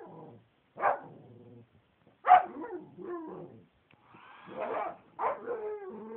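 A dog barking three times, each bark trailing off into a lower drawn-out sound, with a whining call that rises and falls just before the last bark.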